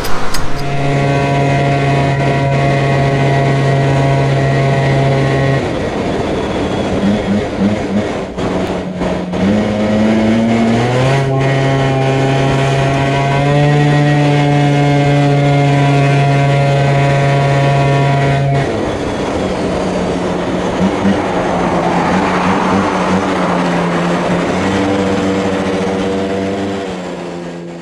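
Honda Dio two-stroke scooter engine running while ridden, with a steady note. The note rises about ten seconds in, holds, then drops back near nineteen seconds. The new CVT drive belt is still bedding in.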